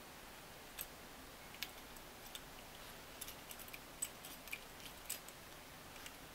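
Light, irregular clicks and ticks of a Singer sewing-machine foot controller's plastic housing and small metal parts being handled and fitted together with a screwdriver, coming more often about halfway through.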